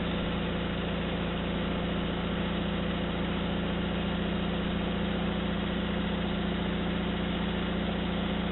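Engine idling at a steady, unchanging speed.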